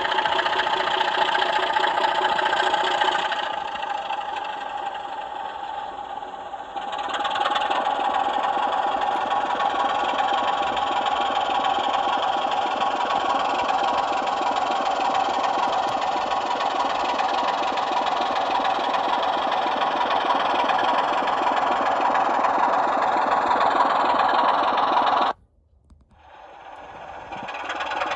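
Sound decoder in an SLW model Class 24 diesel locomotive playing its engine sound through the model's small speaker, running steadily. The sound drops in level for a few seconds near the start, then cuts out suddenly about 25 seconds in and comes back over the next couple of seconds.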